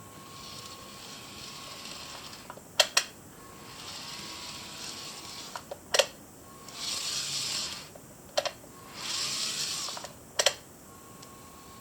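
N-gauge model train's small motor unit running in short stretches of one to two seconds, with a steady hiss and a faint whine, the last two stretches louder. Sharp clicks fall in the pauses between the runs.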